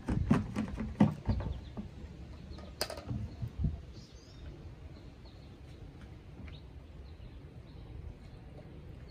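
Knocks and clicks from handling a plastic gas can and the chainsaw's fuel cap, loudest in the first few seconds with one sharp click near three seconds in. After that it settles to faint birdsong chirping.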